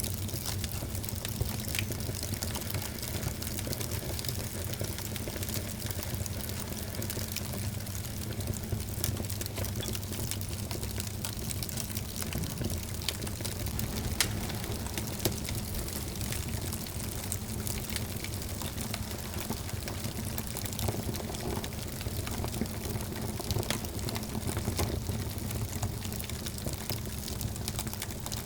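Wood fire burning in a fireplace: a steady hiss with many small crackles throughout and scattered sharper pops, the loudest about fourteen seconds in.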